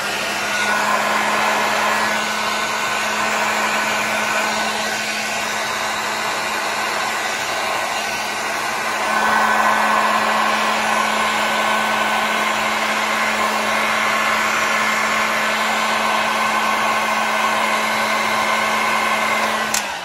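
Heat gun blowing steadily over wet poured resin, with a steady motor hum under the rush of air, working the white wave foam of a resin ocean piece. It gets a little louder about halfway through and is switched off at the very end, its motor winding down.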